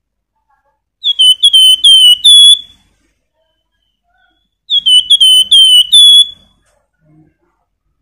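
A caged flamboyan songbird singing two short phrases of five or six quick whistled notes, the first about a second in and the second near five seconds. Each note slurs downward, and the last of each phrase is pitched a little higher.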